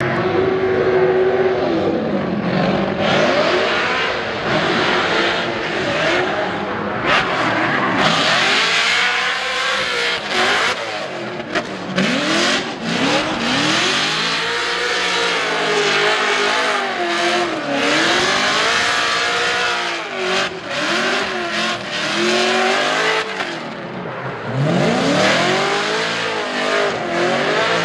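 A drift car's engine revs up and down again and again through a run, over a hiss of sliding, smoking tyres.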